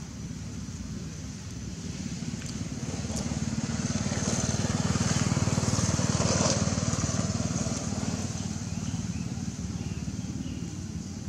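A motor vehicle passing by: its engine grows louder to a peak a little past halfway, then fades away.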